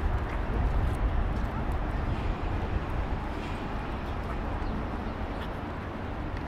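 Outdoor city ambience: a steady low rumble, heaviest in the first few seconds, under a general hiss with a few faint ticks.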